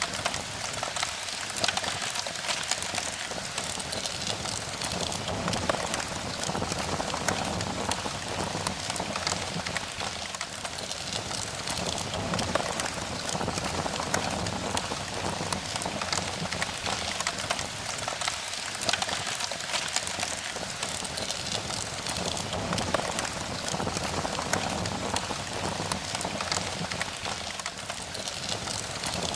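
Steady rain, a dense stream of fine drop impacts that holds even throughout.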